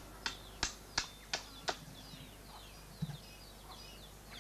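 Sharp knocks of a hand blade chopping into a piece of wood being carved, five strokes about three a second, stopping about halfway through. Faint bird chirps and one dull knock follow in the pause.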